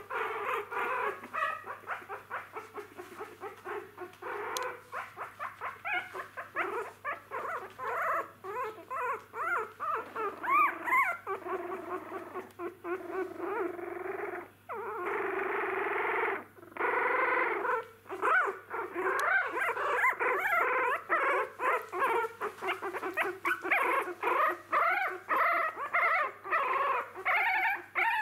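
A litter of young Jack Russell Terrier puppies whimpering and squealing: many short high cries overlapping in quick succession, with a few longer drawn-out cries about halfway through.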